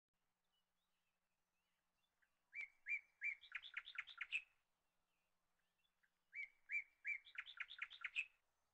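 A songbird sings the same short phrase twice, a few seconds apart. Each phrase opens with three even notes and ends in a quick run of notes.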